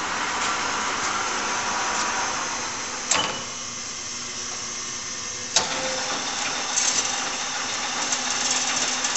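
LeBlond toolmaker's lathe running with its gearhead turning the chuck. About three seconds in, a sharp clunk as the electric clutch and brake are worked, and the running noise drops. About two and a half seconds later a second clunk, and the fuller running noise comes back.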